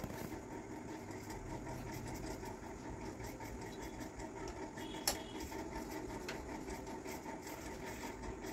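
A hand screwdriver turning a screw into a metal wall hook rail, with faint scraping ticks and a single sharp metallic click about five seconds in, over a steady background hum.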